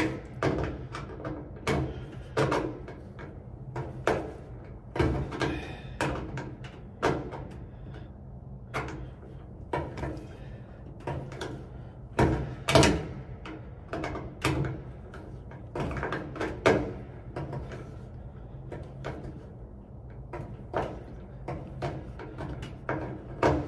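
Screws being tightened by hand on a dryer's power-cord terminal block: irregular clicks and knocks of the tool and metal parts, about one or two a second, over a steady low hum.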